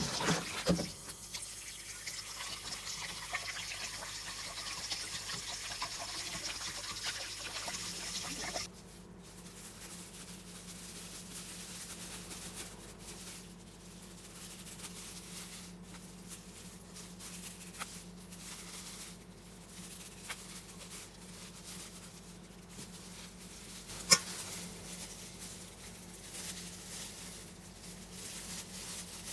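Water sloshing and dripping as a soaked T-shirt is handled in a stainless steel bowl of diluted bleach. About nine seconds in the sound cuts to quieter handling, with a low steady hum, scattered small clicks and one sharp click near the end.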